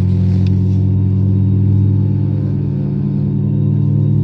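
Airbus A320neo's engines at taxi power heard inside the cabin: a steady low hum made of several held tones.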